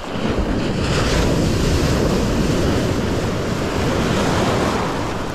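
Shallow surf washing and foaming in over the sand, with wind buffeting the microphone; the wash swells up about a second in and runs on steadily.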